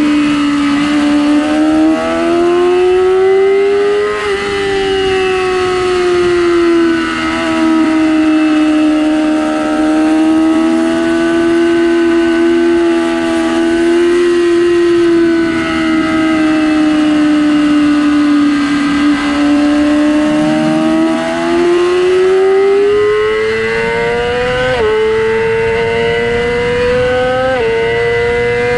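2006 Yamaha R6's 600 cc inline-four running at high revs under steady throttle through a long stretch. Near the end it revs up and shifts up twice, the pitch dropping sharply at each gear change.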